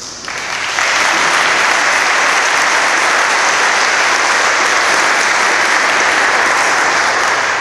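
Audience applauding, swelling over the first second, holding steady, then dying away near the end.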